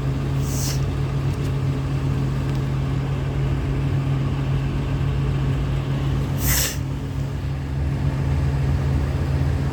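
City bus diesel engine idling with a steady low hum, with two short bursts of air hiss from its pneumatic brakes or doors, about half a second in and again about six and a half seconds in.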